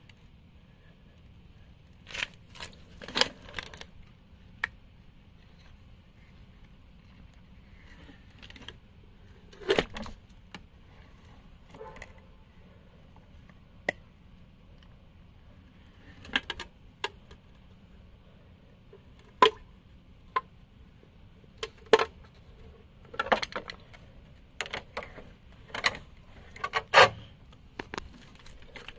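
A sheet of ice in a plastic tub being pried loose with a thin metal tool: irregular sharp cracks, clicks and scrapes as the tool works at the edge and the ice breaks free of the tub, some in quick clusters, the loudest near the end.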